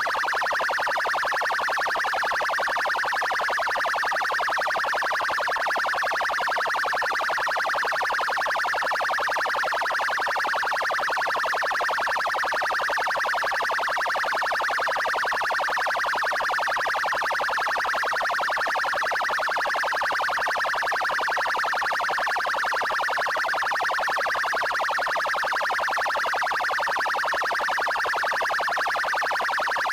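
Police car electronic siren sounding its 'trail' tone, a fast warble that runs on steadily without a break.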